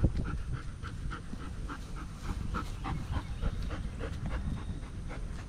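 Black German Shepherd panting steadily, about three or four quick breaths a second.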